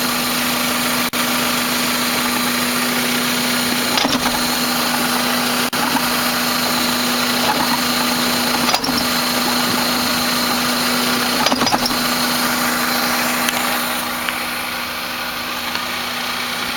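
1998 Toyota Camry engine idling steadily, with several sharp clunks a few seconds apart as the transmission is shifted between reverse and drive. The clunk on each shift is the fault being shown.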